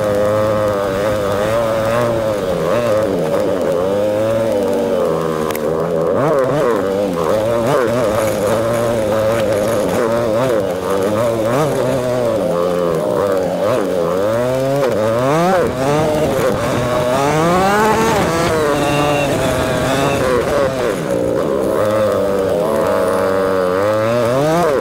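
ATV engine running while riding over rough grass, its pitch rising and falling with the throttle, with several quick revs climbing in the second half.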